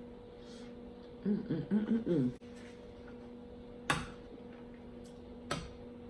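Eating sounds: a few short, hummed vocal murmurs about a second in, then two sharp clicks later on. A steady electrical hum runs underneath.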